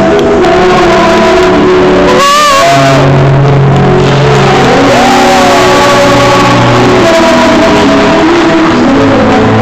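A woman singing a Broadway show tune into a microphone over a backing track, played very loud, with held notes and a wavering glide about two seconds in.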